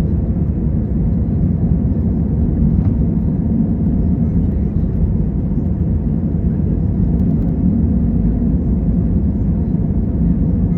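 Steady, loud low rumble inside the cabin of an Airbus A320 during takeoff: its jet engines and airframe noise heard from a window seat.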